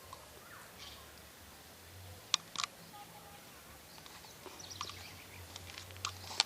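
Quiet woodland-park ambience with faint bird chirps and a low steady hum, broken by two sharp clicks about two and a half seconds in.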